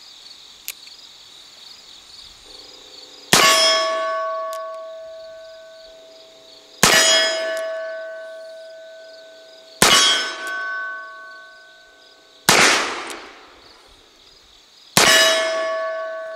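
Five single shots from a Colt Richards conversion of the 1860 Army revolver firing black-powder .44 Colt cartridges, spaced about three seconds apart. Four shots are followed by the long ringing of a struck steel target; the fourth shot has no ring, a miss. Crickets chirp steadily underneath.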